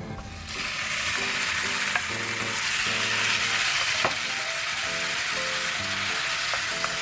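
Food frying in a hot pan: a steady sizzle that starts about half a second in, with a few light clicks.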